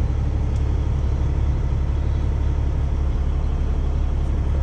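Peterbilt 389 semi truck's diesel engine idling, a steady low rumble heard from inside the cab.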